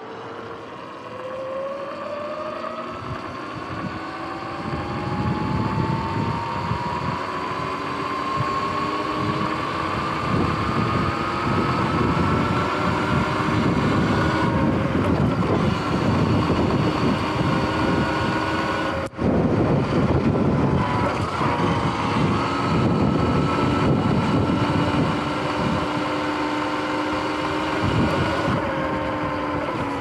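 Sur-Ron X electric dirt bike's motor whining as it rides, the pitch rising steadily as it speeds up over the first dozen seconds, holding, then falling near the end as it slows. Wind rushes over the microphone throughout.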